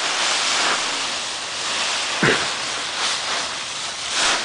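Dry fallen leaves rustling and crunching loudly as a child plunges into a leaf pile and tosses leaves, in repeated swells. A brief pitched sound comes about two seconds in.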